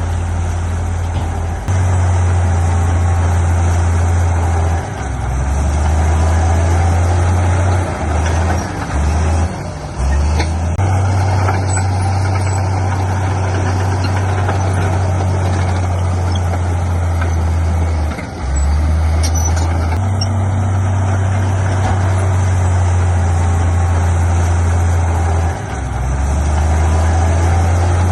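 Heavy diesel engine of earthmoving machinery running under load, a loud low drone that steps up and down in pitch several times.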